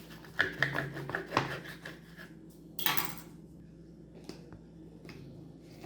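Kitchenware clinking and knocking, a quick run of sharp clicks in the first two seconds, then a brief swish about three seconds in and a few lighter knocks.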